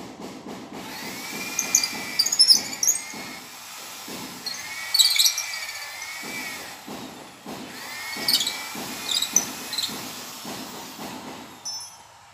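Handheld electric drill boring overhead into the top of a steel trellis-door frame, run in three bursts with the motor whine dipping in pitch under load and stopping near the end.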